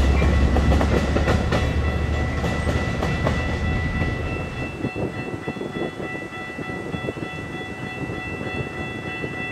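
A train rolling past: a low rumble fades over the first couple of seconds, then the wheels click over rail joints as the cars go by, with a steady high ringing tone throughout.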